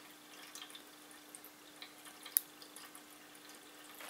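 Mostly quiet room tone with a faint steady hum and scattered small ticks of a plastic-packaged badge being handled, with one sharper click a little past halfway.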